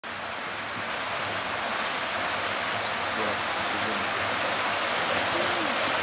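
Rushing river water pouring fast through a shallow stretch between wooden bridge pilings: a steady hiss that grows gradually louder as the boat drifts closer.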